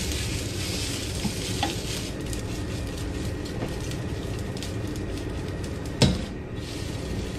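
Ketchup-mixed rice sizzling in a frying pan over a gas flame as it is stir-fried and tossed, with one sharp knock about six seconds in.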